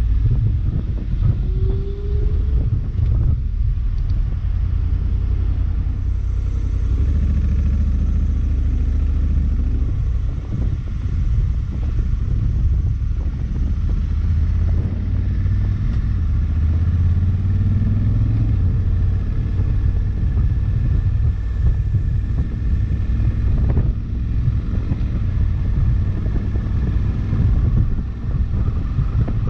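Honda CRF1100L Africa Twin's parallel-twin engine running under way, with a low rumble; its pitch rises briefly a couple of times.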